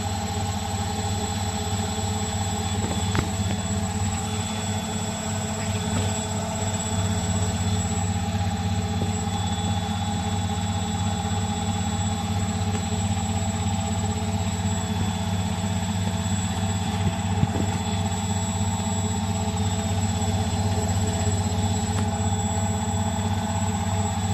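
Bosch Maxx 6 front-loading washing machine on its spin cycle, the drum turning at speed with a steady low hum and a high whine. It gets a little louder about seven seconds in.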